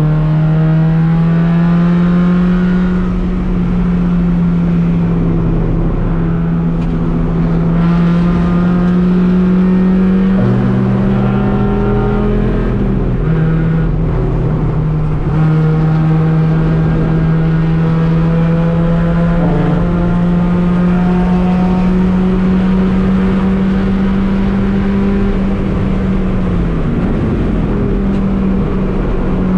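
Race car engine running hard under load, its pitch climbing slowly as it pulls. The pitch drops suddenly about thirteen seconds in and dips briefly near the end as gears are changed. Another engine is heard faintly underneath for a few seconds before the first shift.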